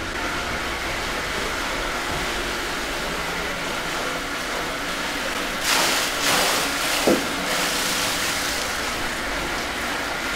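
Steady rush of running water at a wooden water wheel, with a couple of brief louder noises about six seconds in.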